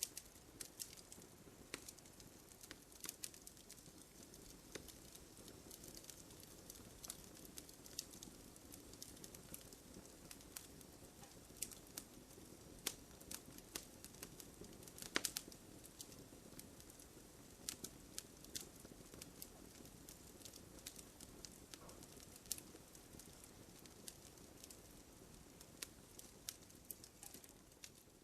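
Wood campfire crackling: a soft steady hiss of burning with irregular sharp pops and snaps, the loudest about halfway through.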